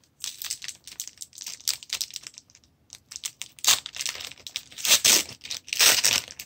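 Hockey card pack wrapper being torn open and crinkled by hand: steady crackling, with three louder rips about four, five and six seconds in.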